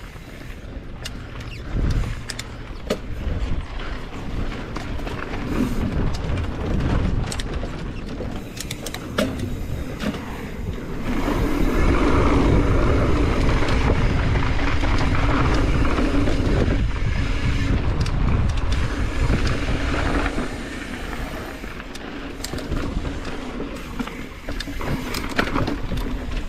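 Mountain bike ride on a dirt trail: wind on the microphone and tyres rolling over the ground, with frequent knocks and rattles from the bike. It grows louder from about eleven to twenty seconds in.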